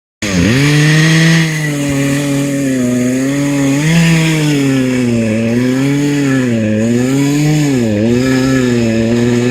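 Chainsaw engine running at high revs, its pitch sagging and recovering every second or so as the chain bites into wood.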